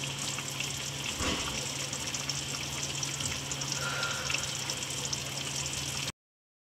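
Stew sizzling and bubbling in a glass baking dish inside a running oven, with fine crackles over a steady low hum. It cuts off suddenly near the end.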